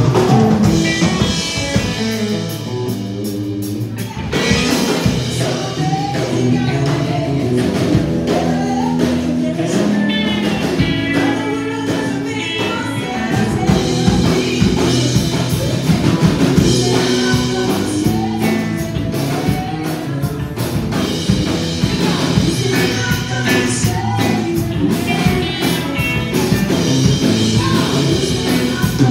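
A country-rock band playing live with a woman singing lead, backed by drums, electric and acoustic guitars and bass.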